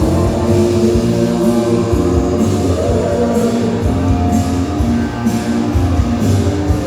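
Loud music played over a party sound system, with sustained pitched notes over a steady beat.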